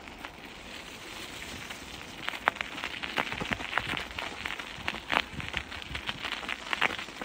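Bicycle tyres crunching through fresh snow: an irregular run of crackles and crunches that grows denser and louder about two seconds in.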